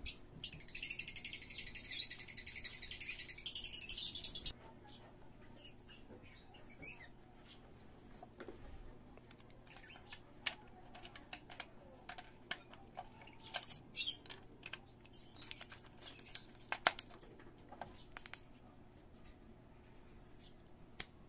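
Birds chirping for the first four seconds or so, stopping abruptly. After that, faint scattered clicks and taps of plastic as the SIM card cover of a home LTE Wi-Fi router is handled and a SIM card is fitted into its slot.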